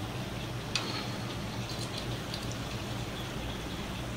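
Hot oil sizzling and crackling steadily as potato cutlets deep-fry in a pan, over a low steady hum, with a sharper click about a second in.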